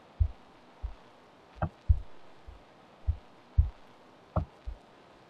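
Computer mouse clicks and soft desk thumps, an irregular scatter of about seven dull low knocks and two sharper clicks, as text is clicked and drag-selected on screen.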